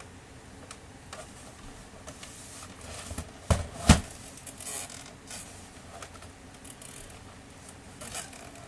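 Handling noises from a laser printer being taken apart: light scraping and small clicks of plastic parts, with two sharp knocks close together about three and a half seconds in.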